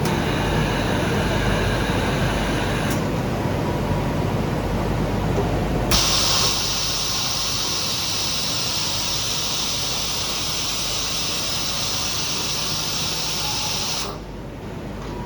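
Automated circuit-board final-cleaning machine running with a steady low hum and a faint whine in the first few seconds. About six seconds in, a cleaning jet switches on with a sudden loud hiss, runs steadily for about eight seconds, then cuts off sharply.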